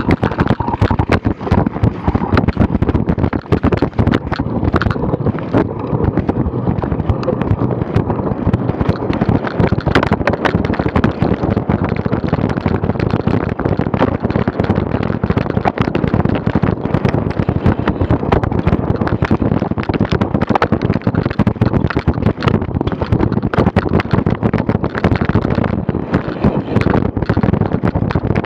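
Wind buffeting the camera's microphone, with a dense, constant rattle of knocks and jolts from a cyclocross bike riding over bumpy grass.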